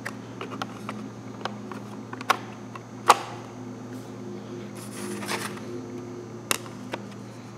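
Light plastic clicks and taps as thin tinted plastic lenses are handled and set onto a 3D-printed gauge cluster housing, with a sharper click about three seconds in.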